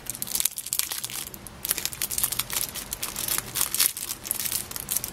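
Thin plastic packaging crinkling and crackling in the fingers as a small wrapped plastic pot of glitter is unwrapped and handled, with a short break about a second and a half in.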